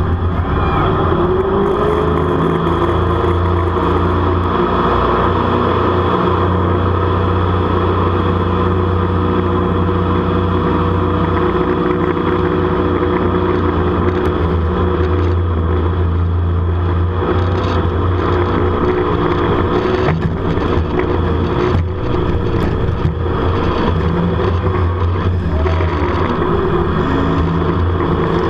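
Jet boat's engine running hard at speed, a steady loud drone whose pitch dips and rises a few times.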